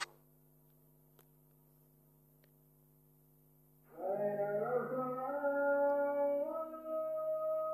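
Near silence for about four seconds, then background music comes in with long held notes.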